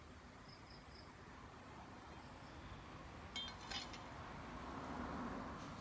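A knife set down on concrete: two light metallic clinks about three and a half seconds in, over faint steady background noise, with a soft swell of rustling near the end.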